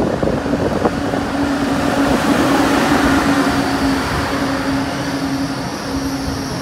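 Lane Xang electric multiple-unit passenger train pulling in alongside the platform: a steady hum over the rushing noise of the passing carriages, which swells a few seconds in and then eases.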